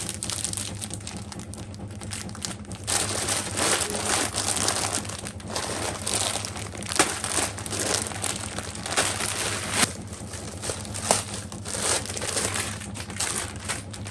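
Plastic packaging crinkling and rustling as it is handled and unwrapped by hand, in irregular bursts with a few sharp crackles, growing busier about three seconds in. A steady low hum runs underneath.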